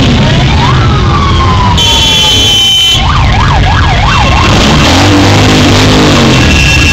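A siren wails, rising and then falling slowly, then switches to a fast up-and-down yelp, over the running engines of a line of motorcycles riding past. A short horn blast sounds about two seconds in.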